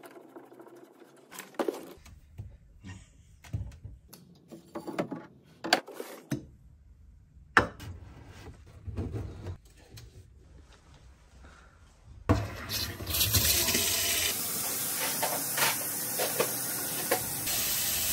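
Scattered knocks and clicks of hands working on fittings under a sink. About twelve seconds in, a kitchen faucet is opened and water runs steadily into a stainless steel sink, the loudest sound here.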